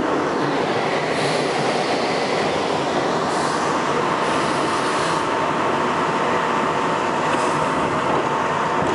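R62A subway train running at speed along the tracks, heard from inside the front car: a continuous loud rumble and rattle of wheels on rail. About halfway through, a steady high tone joins the noise, and brief hissing surges rise and fall a few times.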